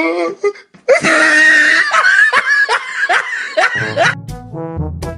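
Loud laughter, a run of short falling 'ha-ha' bursts, then music with brass comes in near the end.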